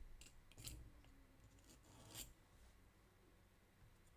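Near silence, with a few faint, brief scratches about half a second in and again about two seconds in, from an unfired clay mug and a wooden modelling tool being handled.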